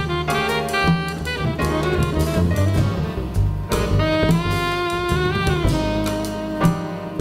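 Small jazz group playing live: tenor saxophone playing a melodic line over piano, double bass and drum kit, holding one long note near the middle.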